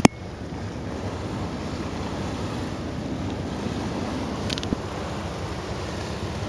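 Wind buffeting the microphone over the steady rush of water and engine noise from a Star Ferry under way across the harbour. A single sharp click comes right at the start.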